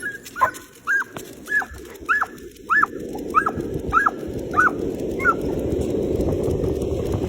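Dog giving a string of short, high, excited yelps, about one and a half a second, which stop about five seconds in. A rushing noise builds up underneath.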